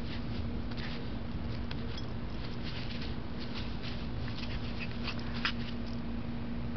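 Boston Terrier puppy scrambling about in grass: short scattered rustles and scuffs over a steady low hum.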